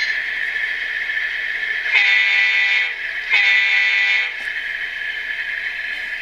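Digitrax DCC sound decoder in a Tower 55 HO scale GEVO model locomotive, playing a steady diesel engine sound through its small onboard speaker. Two horn blasts of about a second each sound, the first about two seconds in.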